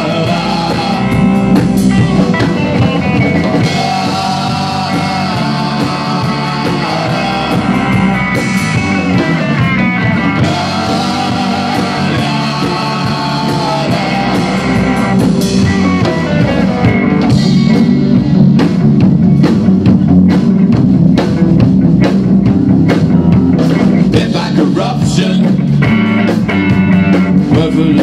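Rock band playing live: electric guitar, electric bass and a Tama drum kit, with a lead line that bends up and down in pitch. Past the middle the drums and cymbals get busier and the whole band louder.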